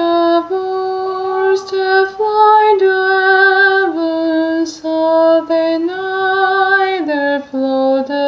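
Solo voice singing a slow hymn melody in long, steady held notes that step from pitch to pitch.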